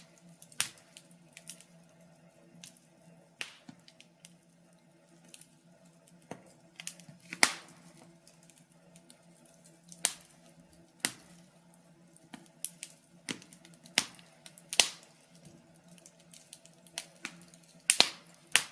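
Fire crackling: irregular sharp pops and snaps at uneven intervals, some much louder than others, over a faint steady low hum.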